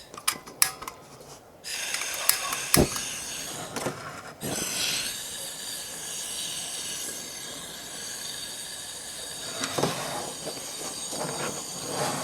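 Portable butane camping gas stove being lit: a few sharp clicks, then the burner catches about two seconds in and hisses steadily, with a knock or two as it is handled.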